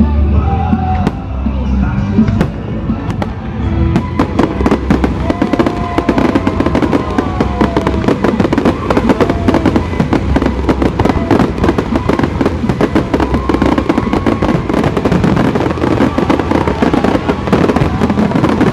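Fireworks going off over music with a heavy bass; from about four seconds in, a dense, rapid crackling of many small bursts takes over and keeps on.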